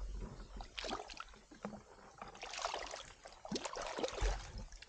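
Hands splashing and sloshing in shallow muddy water in irregular bursts, groping along the bottom for snails.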